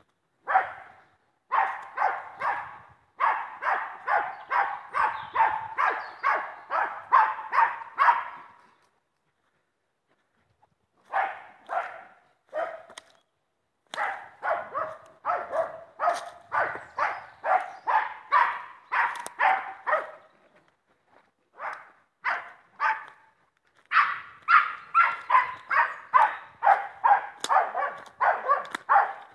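Wire-haired dachshund barking in quick runs of about two barks a second, with a few seconds' pause partway through, baying at a wild boar.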